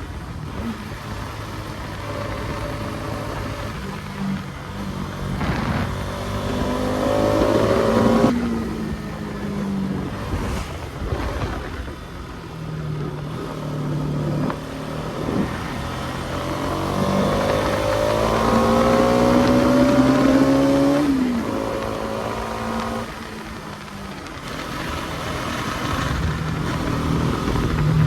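Bajaj Pulsar NS200's single-cylinder engine on the move. Its note climbs steadily twice under throttle, about a quarter of the way in and again past the middle, and each time drops off sharply, with steadier running and a rush of air noise in between.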